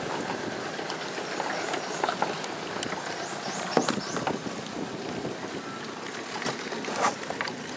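Water sloshing and splashing close by, with a few sharp knocks or splashes, while floating foam wreckage of a blown-up RC boat is fished out of the river.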